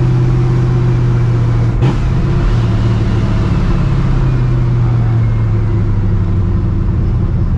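Cammed, Procharger-supercharged and straight-piped 5.4-litre V8 of a 1999 Mustang GT running steadily while cruising, with a single short knock about two seconds in and the engine note dropping slightly after.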